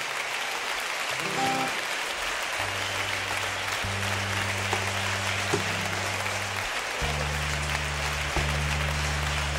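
Audience applauding steadily while, from about three seconds in, an instrument starts playing low held notes that change pitch every second or so.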